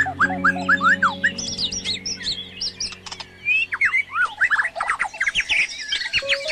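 Many birds chirping and twittering in quick rising and falling notes, over background music with sustained low held notes that fade out about two and a half seconds in.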